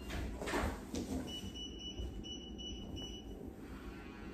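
Rustling of packing wrap and cardboard as a sofa cushion is pulled out of its shipping box, with a steady high tone coming in about a second in and lasting about two seconds, broken once.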